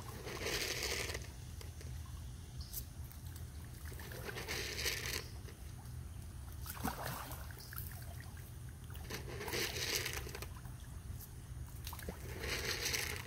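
Catfish feeding at the surface of muddy bayou water: four short bursts of splashing and pattering about four seconds apart, over a steady low rumble.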